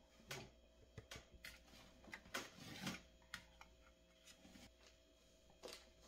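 Spatula scraping a thick creamy filling out of a plastic mixing bowl into a foil pie pan: soft scrapes and light taps, with a longer scrape around the middle.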